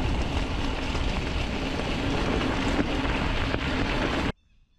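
Wind rushing over the microphone as a gravel bike rides along a road at speed. It cuts off suddenly a little after four seconds in.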